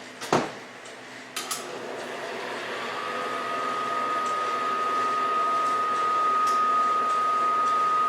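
A knock, then an 18-inch HP lapidary slab saw running and cutting rock. Its noise builds steadily louder over several seconds, and a steady high whine comes in about 3 seconds in.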